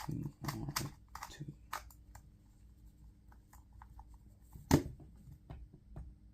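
A 2x2 speed cube being turned quickly, giving a run of small plastic clicks. A single sharp knock about four and a half seconds in is the loudest sound.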